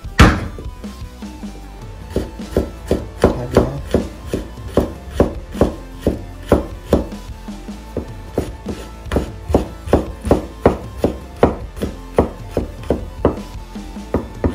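Chef's knife mincing garlic on a wooden cutting board: one hard knock just after the start as the garlic is smashed, then steady chopping strokes at about two to three a second.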